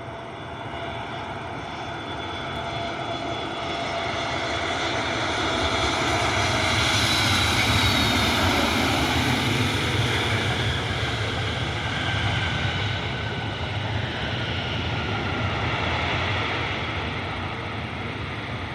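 Airbus A321neo XLR jet airliner flying past on its landing approach: engine noise builds to a peak about eight seconds in, with a whine that slides down in pitch as it goes by, then slowly fades.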